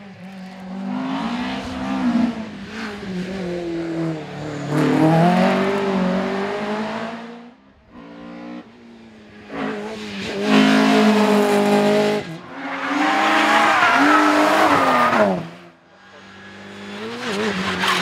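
Rally car engines revving hard as the cars pass, the pitch climbing and dropping back again and again through gear changes and lifts off the throttle, loudest as one car goes by near the middle of the stretch.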